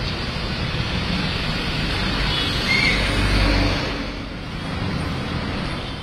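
Traffic on a rain-soaked road: tyres hissing on wet tarmac over running engines, with a vehicle passing close and loudest about three seconds in.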